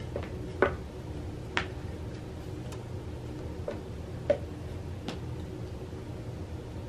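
Low steady room hum with about half a dozen light, irregular ticks and taps, the sharpest about four seconds in.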